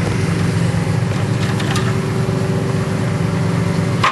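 Truck engine idling steadily, with a few faint clicks about a second and a half in and a sharp knock near the end.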